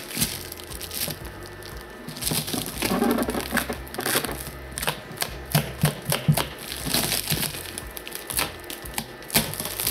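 Clear plastic wrapping being peeled and crinkled off a resin 3D printer's amber acrylic cover, a run of irregular crackles.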